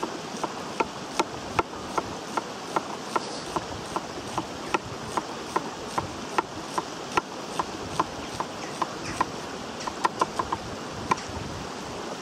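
Chef's knife slicing a red onion very thinly on a wooden chopping board: a steady run of sharp taps of the blade on the board, about two or three a second.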